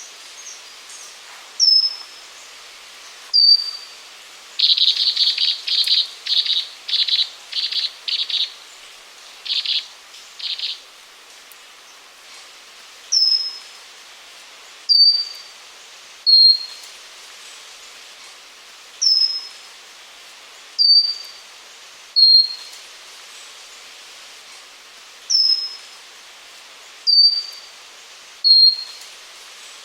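Pygmy wren-babbler (Pnoepyga pusilla) singing: thin, high whistled notes, each a short downward slur, mostly in groups of three with each note a little lower than the one before. From about five to eleven seconds in comes a run of about a dozen quick buzzy notes.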